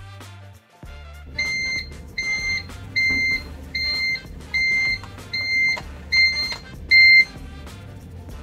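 Eight short, even electronic beeps, one roughly every 0.8 seconds, starting a little over a second in, each about half a second long, the last the loudest. They play over steady hip-hop background music.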